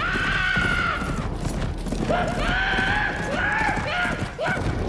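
A horse galloping, its hoofbeats drumming on the forest floor, with long, wavering high-pitched tones over it in the first second and again from about two seconds in.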